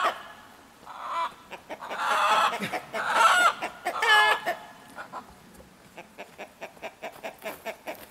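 Bantam chickens squawking: four loud calls in the first four and a half seconds, then only faint short clicks.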